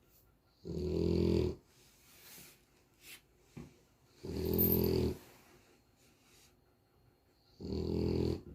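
French bulldog snoring loudly in its sleep: three snores, each just under a second long and about three and a half seconds apart, with faint breathing between them.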